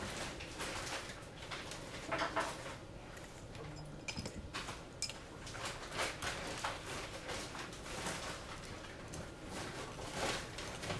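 Light clicks, taps and rustling of hands handling a racing drone's wires and flight-controller stack on a silicone work mat.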